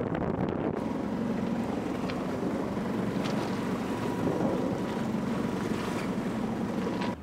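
Steady wind buffeting the microphone, with water rushing along the hull of a sailboat under way at sea.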